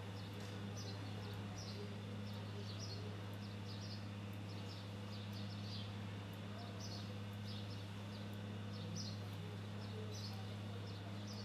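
Outdoor ambience: small birds chirping briefly and often in the background over a steady low hum.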